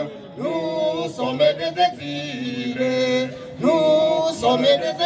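A man singing a protest refrain a cappella into a microphone, his voice carried over a loudspeaker, in phrases of long held notes with short breaks between.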